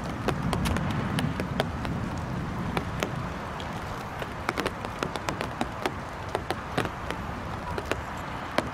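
Raindrops tapping close to the microphone in sharp, irregular clicks over a steady patter of rain. A low rumble underneath fades away over the first few seconds.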